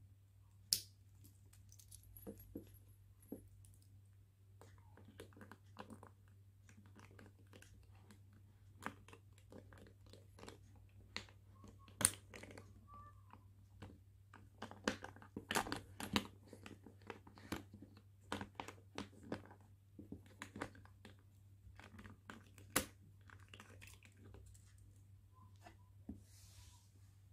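A padlock and its key being handled and fitted onto a leather handbag's metal turn-lock clasp: scattered small metal clicks and taps with soft handling in between. The sharpest clicks come about a second in, about halfway and near the end.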